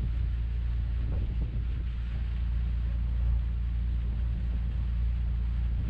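Riverboat engine running steadily: a constant low drone.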